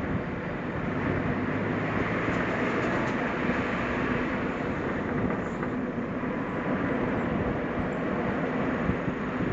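Suzuki Jimny driving along at steady speed: a constant engine drone under tyre and road noise.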